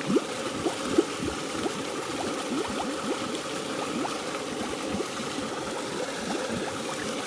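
Water trickling and gurgling over a garden fountain's waterfall, with many small bubbling plops and two louder plops in the first second. The flow is weak, at less than its full pressure.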